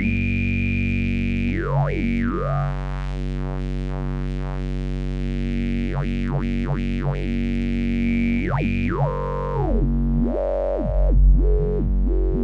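Make Noise QPAS analog stereo multimode filter processing a steady buzzy synth drone, with its high-resonance peaks gliding up and down and spreading apart and back together as the Radiate controls are turned by hand. Near the end the peaks move in quicker jumps and back-and-forth sweeps.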